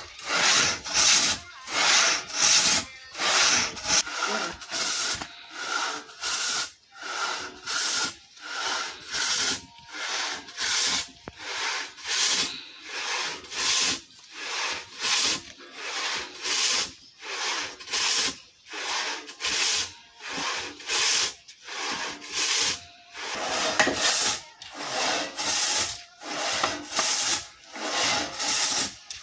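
Two-man pit saw ripping a log lengthwise on a raised trestle, with steady rasping push-pull strokes about once a second.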